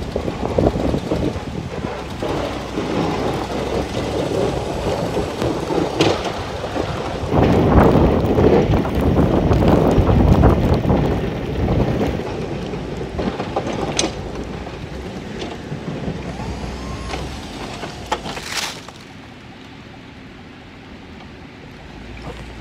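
Snow plow truck driving and pushing snow, its engine running and the blade scraping through the snow. The sound is loudest for a few seconds in the middle, with a few sharp knocks, and turns quieter near the end as the blade stops against a snowbank.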